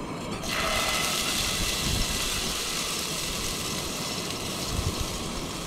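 Yellow curry paste dropped into a hot pot on a portable gas camp stove, sizzling from about half a second in and holding steady over a low rumble.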